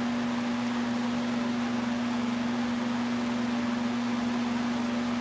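Electric tower space heater's fan running steadily, a constant whir with a steady hum.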